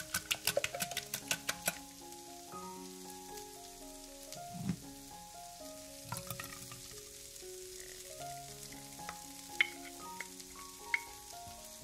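Wire whisk beating eggs in a glass bowl, quick even clicking strokes that stop about two seconds in. Then thick yogurt poured into the eggs lands with a soft glop about halfway through, over soft background music.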